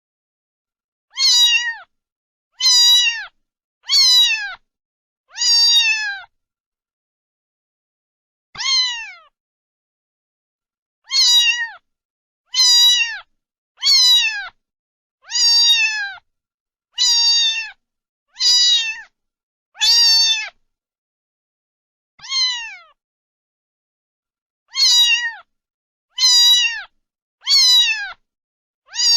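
Domestic cat meowing over and over: about sixteen short meows, each falling in pitch at the end. They come in quick runs of one every second or so, with a few longer pauses between runs.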